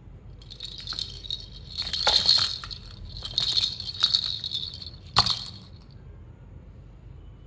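Small bell in a cat toy jingling in irregular shakes as the kittens play, with a sharp clack a little after five seconds; it stops about six seconds in.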